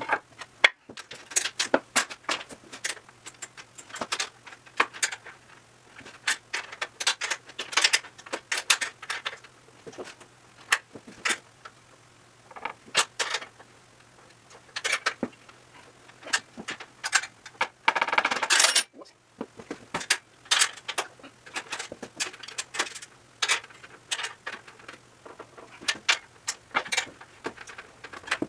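Irregular metal clicks and clinks of bolts, nuts and a wrench against the steel legs and braces of a drum sander stand as it is assembled and the hardware tightened, with a brief rapid rattle about two-thirds of the way through.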